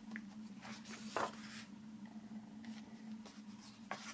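Glossy pages of a hardcover photo book being turned by hand: a few soft paper rustles and brushes, the loudest about a second in. A faint steady hum runs underneath.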